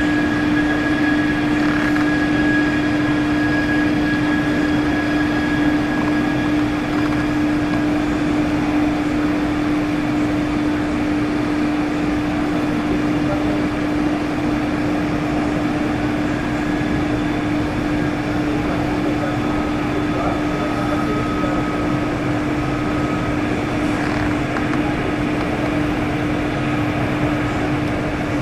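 Steady drone of a Bombardier CRJ regional jet's engines at taxi power, with a constant low hum throughout and a faint higher whine that comes and goes.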